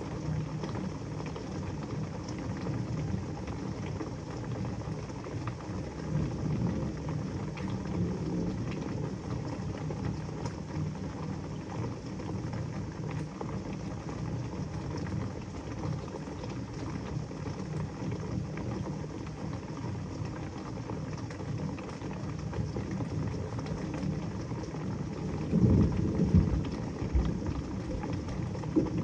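Heavy rain pouring steadily, with low thunder rumbling underneath; a louder rumble swells near the end.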